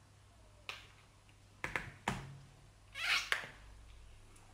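A spoon clicking against a plastic bowl during spoon-feeding: a few light, sharp clicks, then a short scrape about three seconds in.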